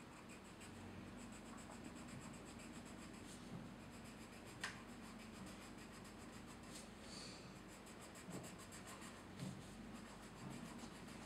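Faint scratching of a pencil crayon colouring on paper, with one light tap about four and a half seconds in.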